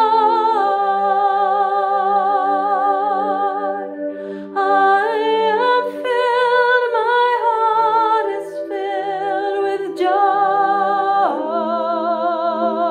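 A woman singing long, wordless held notes with a wavering vibrato, stepping to a new pitch a few times. Beneath her voice a small accompanying instrument sustains a steady chord.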